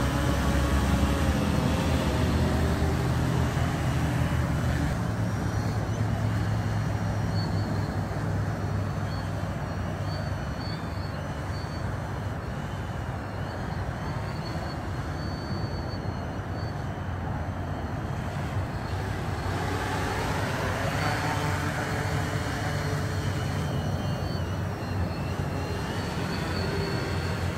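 Multirotor drone in flight, its electric motors and propellers making a steady buzzing hum. It fades as the drone moves away and grows louder again as it comes back.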